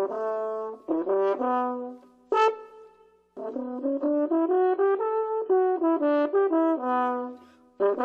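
French horn played solo: a short phrase of separate notes, a pause of about a second, then a longer melodic run of notes stepping up and down.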